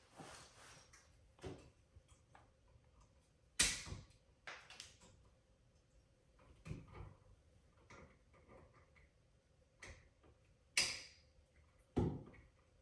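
Hand tools and electrical wires being handled while wiring a light switch: scattered sharp snaps and clicks, the loudest about three and a half seconds in and again near the end, with softer taps and rustles between.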